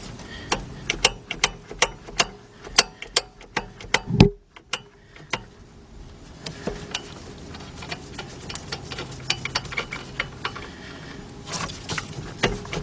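Quarter-inch drive ratchet clicking in quick runs of strokes as a bolt is worked loose, with a short grunt about four seconds in. The clicking mostly stops for several seconds, then starts again near the end.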